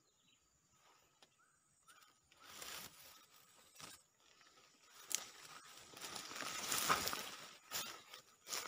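Dry grass and reed stalks rustling and crunching underfoot as someone pushes through a swampy thicket, in uneven swells with a few sharp snaps, loudest about seven seconds in.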